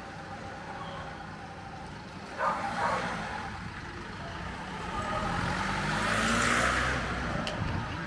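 A small car drives slowly past, its engine and tyre noise swelling to a peak about six to seven seconds in and then fading away. A brief sudden knock sounds about two and a half seconds in.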